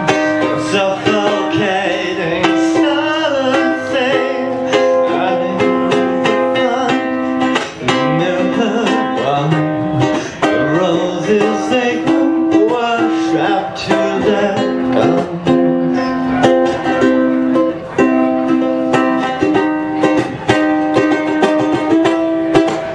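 A ukulele playing a song, with a singing voice in places and the ukulele carrying on alone for much of the passage.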